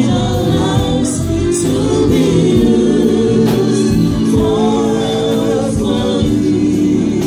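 Live gospel worship song: a man and a group of women sing together into microphones through the hall's sound system, steady and loud throughout.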